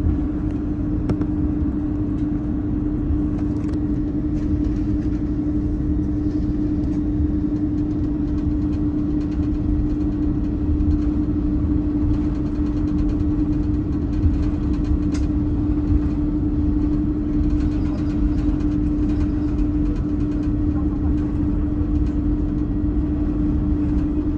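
Cabin noise inside an Airbus A330-203 airliner: the steady low rumble of its General Electric CF6-80E1 turbofans and airflow, with a constant hum running through it.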